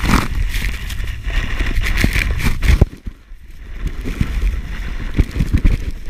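Wind and spraying snow buffeting a GoPro's microphone, with a heavy low rumble and crackling knocks as the camera is blasted with snow. The noise drops away briefly about halfway through, then comes back.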